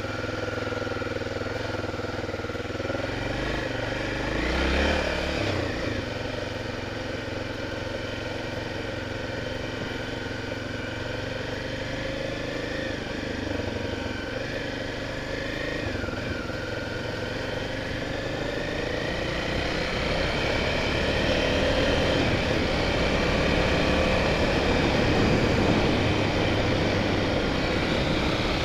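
Honda Tornado 250's single-cylinder four-stroke engine running under load as the motorcycle rides through thick mud on bald tyres, its pitch rising and falling with the throttle. There is a brief rev about five seconds in, and the engine gets louder toward the end.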